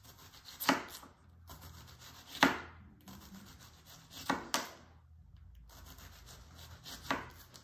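Chef's knife slicing an onion on a wooden cutting board: five sharp knocks of the blade striking the board, with crisp cutting and scraping sounds between them.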